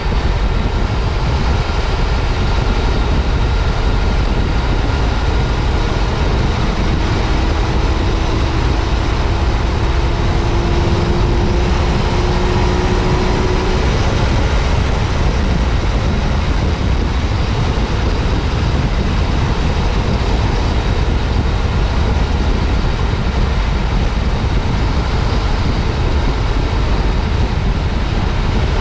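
Yamaha FJ-09 Tracer's 847 cc three-cylinder engine running steadily at riding speed, under heavy wind and road rush on a helmet chin-mounted microphone. A faint whine rises slowly through the middle and fades out.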